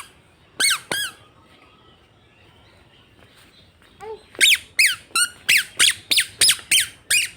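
A series of short, high squeaks, each falling in pitch. Two come near the start, then a quick, even run of about three a second begins about four seconds in.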